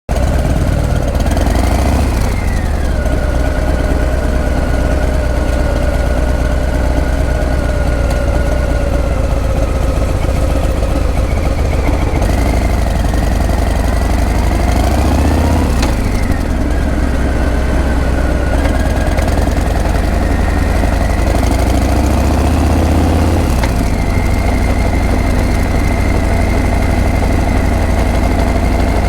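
Harley-Davidson Breakout's V-twin engine and exhaust running at low revs, its pitch rising and falling several times as the throttle is opened and closed.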